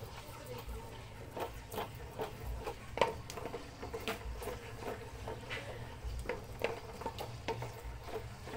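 Wooden spoon knocking and scraping against a metal pot while stirring coconut milk cooking down into latik: irregular clicks about one or two a second, the loudest about three seconds in, over a steady low hum.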